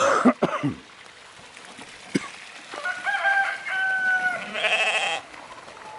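A sudden loud flurry of wingbeats as a goose takes off, then a rooster crowing from about three seconds in: one long, steady call that ends in a buzzier stretch.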